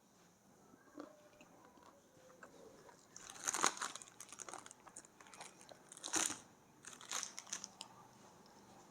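A person biting into and chewing dry edible clay: soft chewing with three louder crisp crunches, about three and a half, six and seven seconds in.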